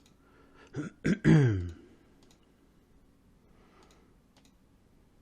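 A man clearing his throat once, about a second in: a short rasp and then a voiced sound falling in pitch. A few faint clicks sound before and after it.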